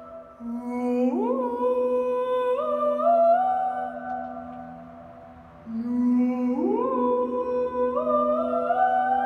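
A man's wordless improvised singing: held, hum-like notes that glide and step upward in pitch over a steady low held note, in two phrases, the second starting about halfway through. The notes ring on and overlap in the concrete tunnel.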